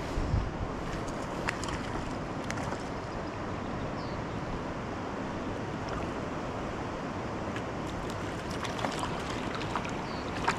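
Small stream rushing over stones: a steady wash of flowing water, with a few faint ticks scattered through it.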